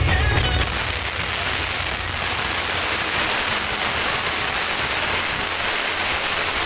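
Long strings of firecrackers going off in a dense, steady crackle of countless rapid pops, with music underneath.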